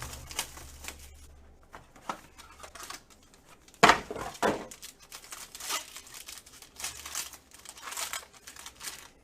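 Plastic wrapping of a sealed trading-card box and pack crinkling and tearing as it is opened, in a series of crackles with one sharp, loud rip about four seconds in.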